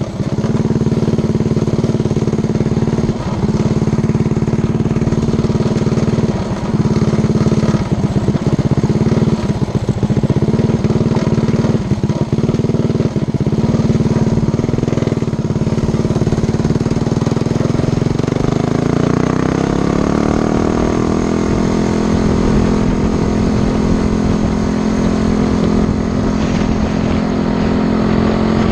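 Coleman CT100U mini bike's Predator 212 Hemi single-cylinder engine running under way, with several brief dips in the first half. About 19 seconds in it revs up and holds steady at a higher pitch.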